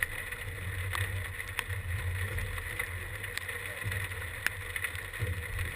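Wind noise on the microphone, a low rumble rising and falling in gusts, with a few sharp ticks scattered through it.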